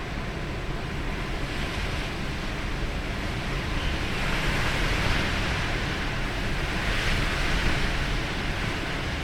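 A steady rushing noise that swells louder about four seconds in and again about seven seconds in.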